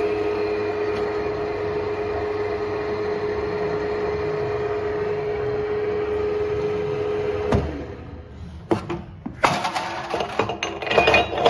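Mainca PT-98 meat grinder's 380 V electric motor running unloaded with a steady hum. About three-quarters of the way in it stops with a sharp click, followed by irregular metallic clinks and knocks.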